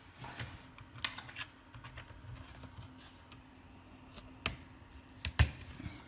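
Light clicks and knocks from handling a network cable and its plug at a laptop, with two sharper clicks about four and a half and five and a half seconds in.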